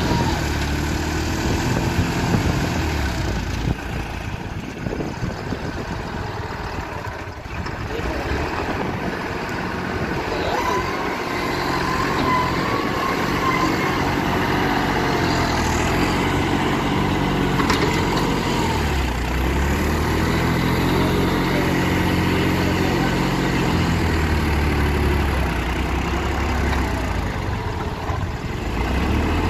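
John Deere four-wheel-drive tractor's diesel engine running under load while its Bull front loader digs and lifts sand. The engine speed rises and falls several times in the second half.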